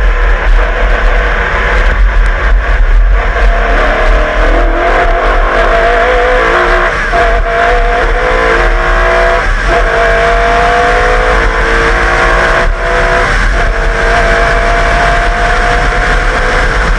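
Holden V8 of a Group A Walkinshaw VL Commodore race car accelerating hard, its note climbing through the revs and dropping back at upshifts about three times.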